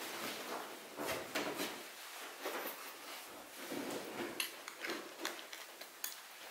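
Dancers' feet shuffling, sliding and stepping on a wooden floor, with clothing rustling and soft bumps of bodies moving against each other. The sounds come as irregular soft swishes with a few small knocks.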